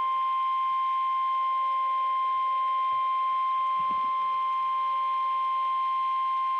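NOAA Weather Radio warning alarm tone: a single steady electronic tone held unbroken. It is the signal that an emergency weather warning is about to be broadcast.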